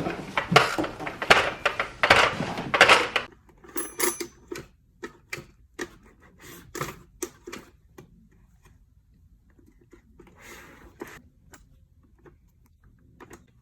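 Hard plastic toy pieces being handled: about three seconds of dense clattering and rattling, then scattered single clicks and taps with quiet gaps between.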